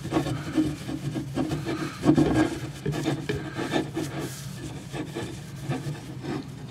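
Cotton buffing towel rubbed briskly over a chrome drum rim in repeated back-and-forth strokes, wiping off chrome polish residue after the rust has been rubbed out.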